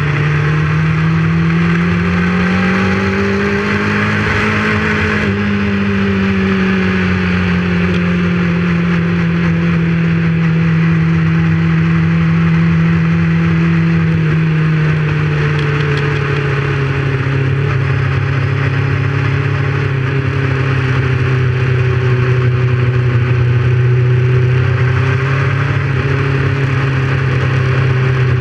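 Motorcycle engine running at a steady road speed under a constant rush of wind and road noise. Its note rises a few seconds in, then slowly eases back down and holds steady.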